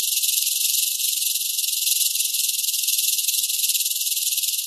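Rattlesnake shaking its tail rattle in a continuous, fast, high buzz that holds steady throughout: the defensive warning rattle of a coiled snake.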